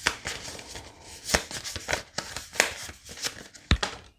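Chakra oracle cards being shuffled by hand: a rustle of cards sliding over one another, broken by about half a dozen sharp snaps as the cards are split and pushed together, the sharpest near the end.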